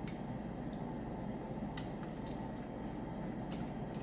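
Faint, scattered clicks and squishes of steamed shellfish being shelled and eaten, over a steady low background hum.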